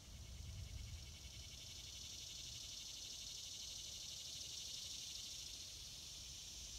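Insects calling in chorus in summer woodland: a steady, high, pulsing buzz that swells from about two seconds in, over a faint low rumble.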